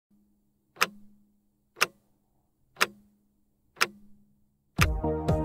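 Clock ticking sound effect: four sharp ticks, one a second. Background music starts near the end.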